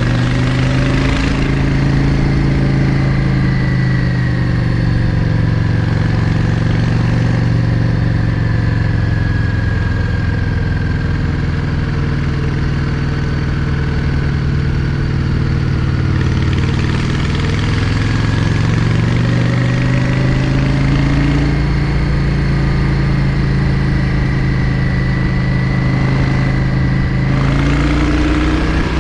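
Yamaha XVS 650 Drag Star's air-cooled V-twin engine running while riding. Its pitch sinks slowly through the middle and climbs again in the second half.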